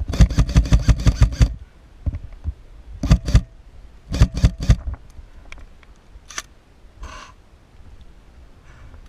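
Airsoft electric rifle firing: a rapid burst of about ten shots, then shorter bursts of two and three shots and a single shot, each a sharp mechanical clack.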